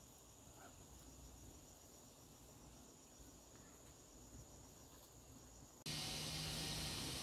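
Faint high-pitched insect trill, steady with a fast pulse, like crickets at night. About six seconds in, it gives way abruptly to a louder steady hiss.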